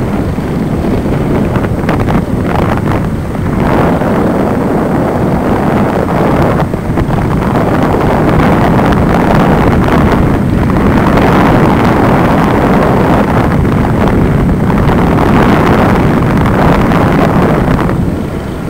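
Wind buffeting the microphone of a camera rig lifted by a kite: a loud rushing noise that swells and eases every few seconds.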